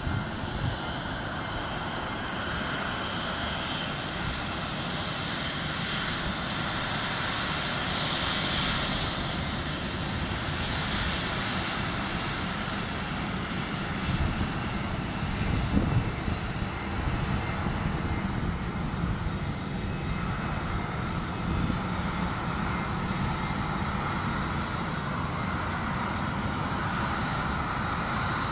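Jet airliner engines running: a steady rushing noise with a high whine over it.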